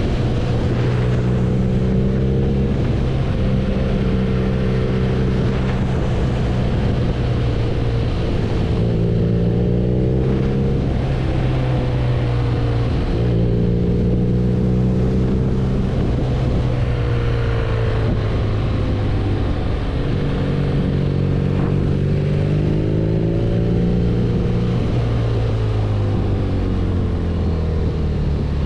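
BMW R nineT's air/oil-cooled boxer twin engine running under way, its note climbing and dropping several times as the revs change.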